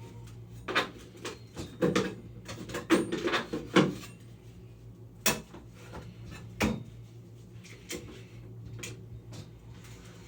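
Utility knife and scraper scraping and picking loose paint, drywall mud and paper tape off a water-damaged drywall ceiling: irregular scrapes, taps and clicks, densest about two to four seconds in, over a low steady hum.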